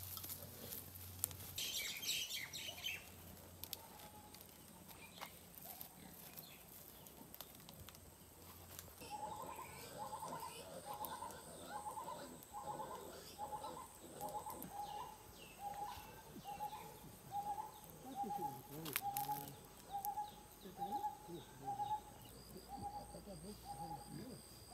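A bird calls: a quick burst of high chirps near the start, then a long unbroken series of short mid-pitched notes repeated about one and a half times a second, with a faint steady high tone behind.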